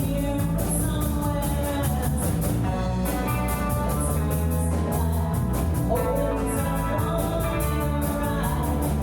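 Rock band playing live: electric guitar and bass over drums, with a steady beat of cymbal strokes.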